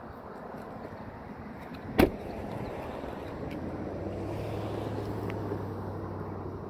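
A car passing on the road: its tyre and engine noise swells from about the middle with a steady low hum, then fades. A single sharp knock about two seconds in.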